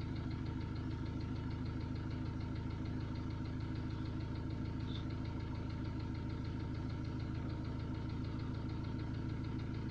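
Ford Transit common-rail diesel engine idling steadily with a fine, regular knock. The scanner's cylinder-balance reading points to a leaking injector.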